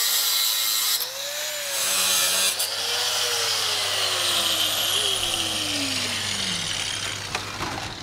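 Angle grinder grinding steel rebar, then lifted off the work, its whine falling steadily in pitch over several seconds as the disc coasts down.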